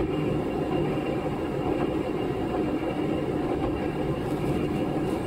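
KiHa 11 diesel railcar (KiHa 11-5, ex-JR Tokai KiHa 11-123), heard from on board: its engine runs with a steady drone at an even pitch.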